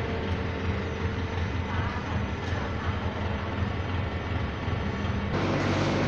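Diesel engine of a C3 concrete mixer pump running steadily under load while it pumps concrete up the delivery pipe, a continuous low drone with mechanical noise on top. The sound gets a little louder and harsher near the end.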